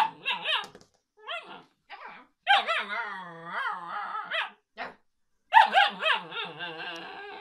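Husky-type puppy howling and "talking": a string of wavering calls that rise and fall in pitch, a few short ones first, then a long drawn-out howl about halfway through and another run of calls near the end.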